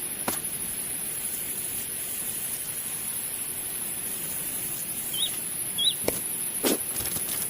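Outdoor ambience: a steady high-pitched insect drone, two brief bird chirps about five and six seconds in, and a few light knocks, the loudest near the end.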